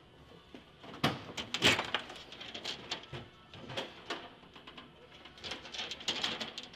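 Knocks, clicks and rattles of a light aircraft's aluminium engine cowling being handled as a hinged cowl door is swung open, the loudest knock about a second and a half in and a run of quicker rattling clicks near the end.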